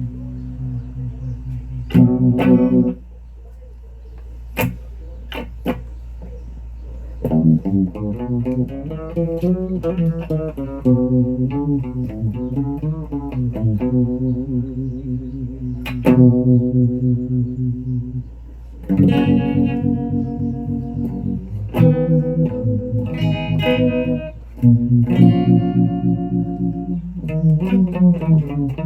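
Electric guitar played through effects: struck notes and chords left to ring, with wavering, bent sustained notes in between, over a steady low hum.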